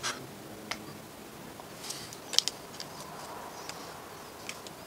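Scattered light clicks and taps of small clock numerals and a glue bottle being handled and set down on a wooden clock face, irregular rather than rhythmic, with one sharper click a little past two seconds in.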